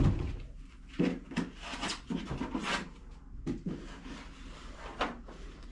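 Objects being handled and set down: a series of irregular knocks and thuds with rubbing between them, the loudest knock at the very start.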